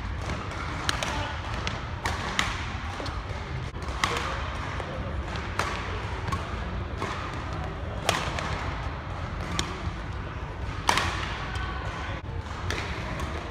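Men's singles badminton rally: sharp cracks of racket strings striking the shuttlecock, irregularly a second or two apart, with players' footsteps thudding on the court.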